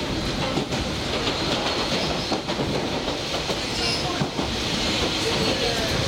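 Steady running noise of a local electric train heard from inside the car: wheels rumbling along the track, with a few clacks over rail joints.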